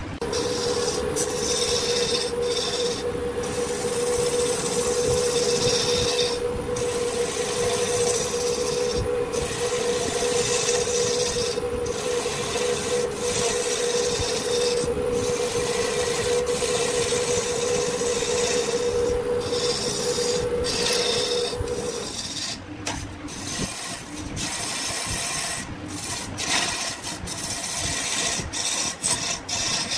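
Wood lathe running with a steady hum while a tool rasps and scrapes against the spinning wood, in strokes broken by brief pauses every two to three seconds. The hum stops about 22 seconds in, and irregular scraping goes on after it.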